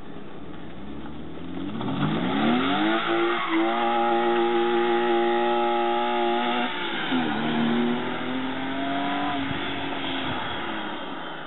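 BMW E30's swapped-in M50 non-VANOS inline-six running through OBD2 exhaust manifolds and stock E30 piping, revving under acceleration. The engine note rises over about two seconds, holds high and steady for a few seconds, drops about seven seconds in, then climbs again more gently.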